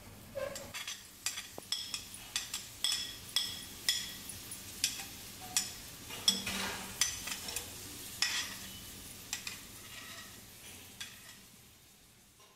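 Batter being stirred by hand in a glass bowl, the utensil clinking against the glass in an irregular run of ringing taps, one or two a second. The taps fade out near the end.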